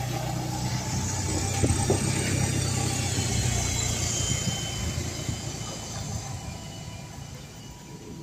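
Diesel engine of a single-deck bus pulling away and driving past. It is loudest in the first few seconds, then fades as the bus moves off.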